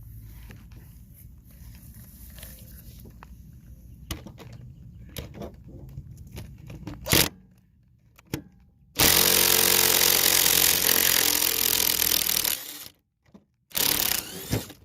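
Handheld power drill spinning out the last bolt holding a push-mower engine to its deck: one run of about three and a half seconds, then a short second burst. Before it come quiet handling noises and a sharp click.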